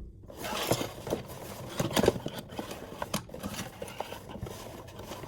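Blind-box packaging being handled: rustling with scattered taps and clicks, the loudest about two seconds in.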